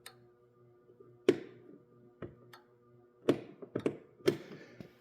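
A string of sharp clicks and taps as the ignition key is worked, among them the new fuel shutoff solenoid on the bottom of the Kohler 18 hp mower engine's carburetor clicking. The click is the sign that the solenoid is getting power and opening to let fuel flow.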